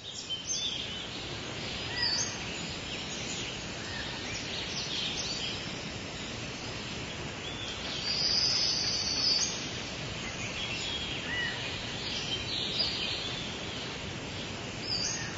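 Forest ambience: many birds chirping and whistling in short calls over a steady hiss, with a high buzzing trill standing out for about a second and a half about eight seconds in.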